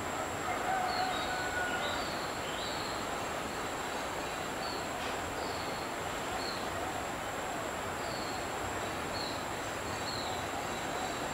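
Outdoor ambience: a steady rushing noise bed with small birds chirping short descending notes every second or so, over a constant high-pitched whine.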